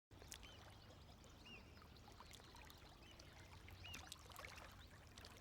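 Faint trickling, pouring water with small bubbling chirps over a low hum.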